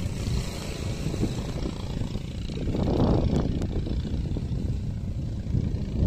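Wind buffeting the microphone: a loud, irregular low rumble that swells about three seconds in.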